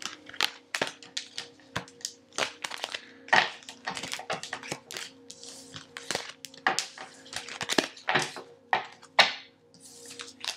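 Tarot cards being handled on a table: an irregular run of short snaps, taps and slides of card stock, about two or three a second.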